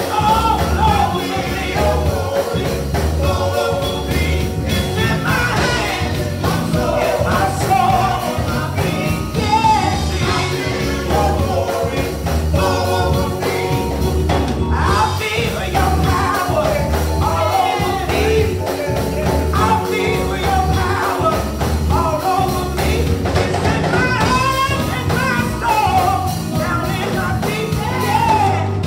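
Gospel praise team of several singers singing with microphones over instrumental backing with a steady beat.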